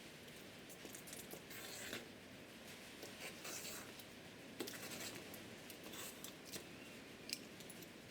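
Faint handling noises of a kit's parts and packaging: light rustling and scraping with scattered small clicks and taps.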